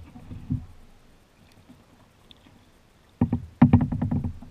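Kayak paddling: paddle strokes splashing and dripping close to the hull, with a louder burst of quick splashes and knocks about three seconds in.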